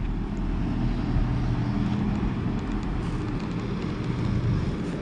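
Steady low rumble of a running engine, with a faint humming pitch.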